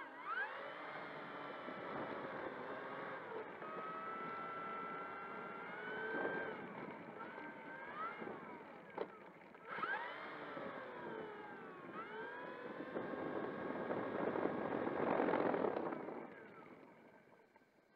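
Electric motor and propeller of an E-flite Air Tractor RC plane whining, its pitch rising and falling with the throttle as it taxis. It drops off briefly about nine seconds in, picks up again, is loudest a little before the end, and then winds down.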